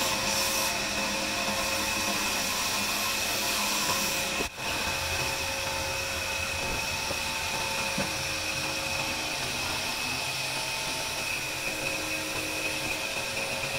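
Wood lathe's electric motor running with a steady high whine, broken only by a brief drop about a third of the way through.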